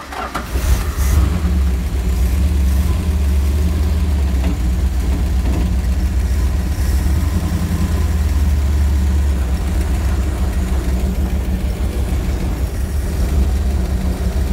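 1965 Dodge A-100's 318 V8 running steadily, heard from inside the cab, a low, even engine sound.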